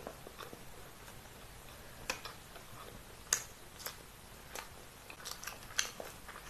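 A person chewing food with wet mouth clicks and smacks scattered throughout, the sharpest about three seconds in and a quick run of them between five and six seconds.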